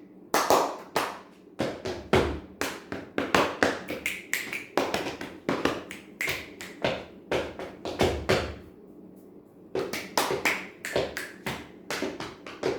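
Body percussion tapped out in a rhythm: hand claps, finger snaps and foot stomps, about two or three strokes a second, with a short pause about nine seconds in.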